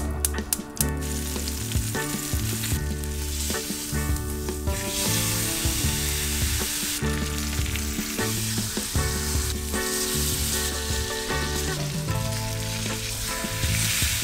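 Rump cap (picanha) searing fat side down in a ridged grill pan on high heat, sizzling and spitting fat, louder from about five seconds in. Background music with a steady bass line plays underneath.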